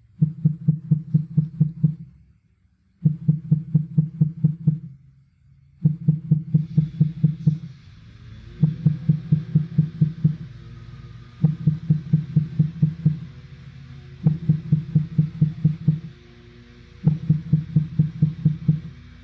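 Subwoofer playing 160 Hz CEA-2010 tone bursts from a Klippel distortion analyzer. The bursts come in seven groups of about eight short pulses each, a new group roughly every three seconds. The drive voltage is stepped up with each group as the test searches for maximum output before distortion fails.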